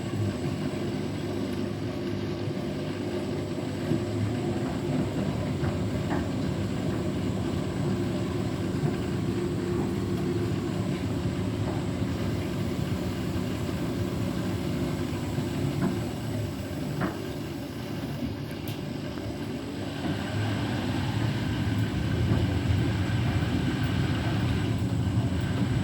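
Beko WTK104121W washing machine's drum motor running, tumbling the load to distribute it before a spin, with a few faint knocks. About twenty seconds in the motor gets louder as it speeds up. The load of bedding is unbalanced, which keeps the machine from going into a full spin.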